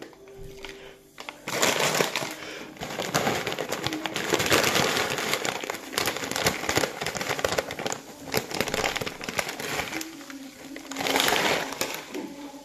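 Plastic snack bag of potato sticks crinkling and rustling as a hand rummages in it and pulls sticks out, in irregular bursts of crackling.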